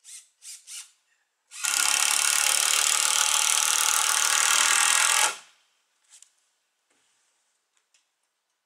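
Power drill working in the wooden rafters: three quick trigger blips, then held on steadily for almost four seconds and stopped sharply.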